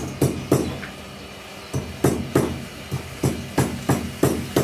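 Metal pestle pounding fresh ginger in a small metal mortar: sharp ringing clanks about three times a second, with a pause of about a second near the start.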